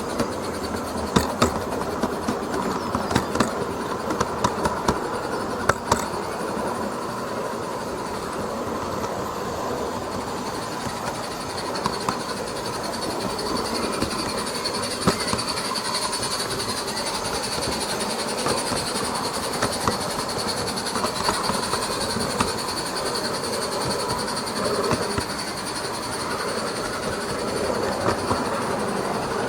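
SM32 garden-railway goods train running along the track: a steady rolling noise with a run of sharp wheel clicks over rail joints in the first few seconds.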